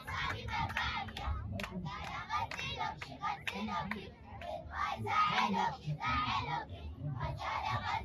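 Crowd of people talking and calling out, many voices overlapping, with a sharp click about a second and a half in.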